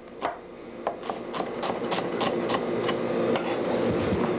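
Chef's knife chopping onion on a wooden cutting board, a quick run of knocks about three or four a second. Under it a steady hum grows louder from about a second in.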